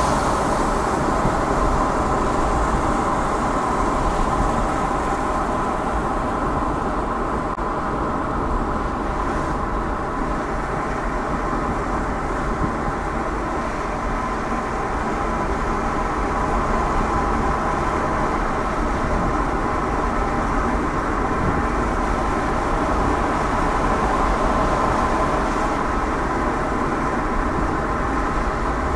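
Car driving on the road: a steady low rumble of tyre and engine noise with a constant hum, unbroken by any sharp sounds.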